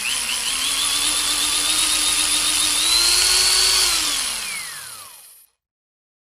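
Electric blender motor running with a grinding whine whose pitch wobbles, rising slightly about three seconds in. From about four seconds it is switched off: the pitch falls as the motor spins down, and it dies away about a second and a half later.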